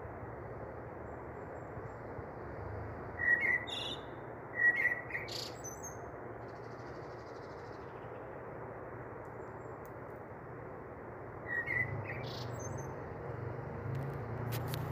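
A few short bird chirps over a steady background hiss: a pair about three to five seconds in and another near twelve seconds.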